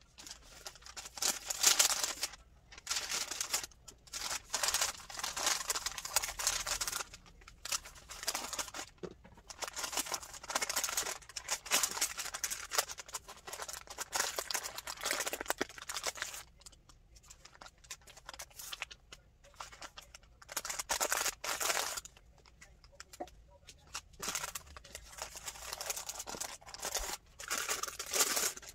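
Paper rustling and crinkling as sheets and a card are handled and folded by hand, in irregular bursts with short pauses between.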